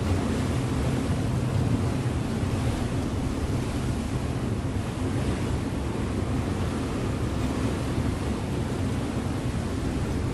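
River motor ship under way: a steady, low engine drone under a constant rush of water and wind.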